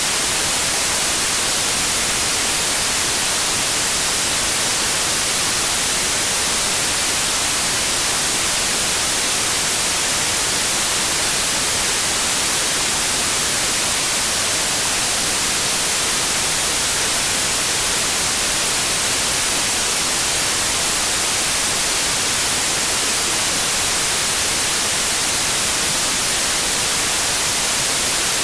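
Steady, unbroken white noise: an even hiss, strongest in the high frequencies, with no change in level.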